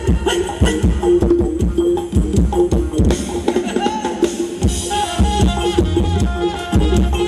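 Live band playing ramwong dance music through large PA speakers: a fast, steady drum and percussion beat under a held mid-pitched tone, with a higher melodic line coming in about five seconds in.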